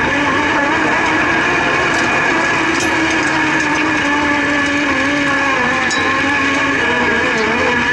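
Race car engine running at low, steady revs while the car rolls slowly. Its pitch sags a little in the middle and picks up near the end, heard up close through a bumper-mounted camera.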